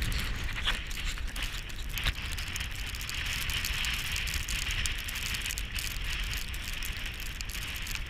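Steady hiss of rain with wind rumbling on the microphone and scattered sharp ticks of drops.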